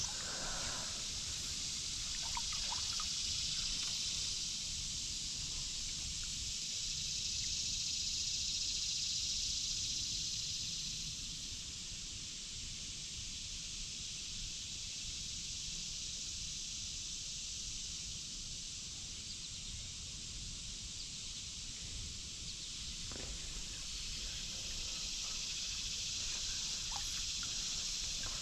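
Steady hiss of a shallow river's current running over riffles, a little louder for the first ten seconds or so and again near the end.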